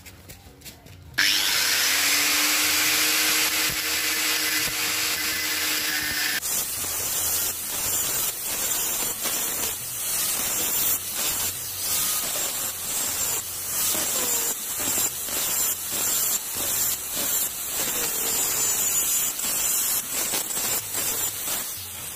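Angle grinder with a thin metal cutting disc starting up about a second in and running free with a steady whine for about five seconds, then cutting lengthwise into the steel centre-stand pivot housing of a Honda scooter, the noise rough and uneven as the disc bites. The cut is made so lubricant can reach the rust-seized stand pivot shaft.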